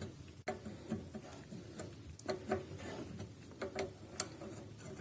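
Irregular light clicks and metallic taps of hand tools and brake parts being handled while a brake hose fitting is secured, with a sharper click about four seconds in.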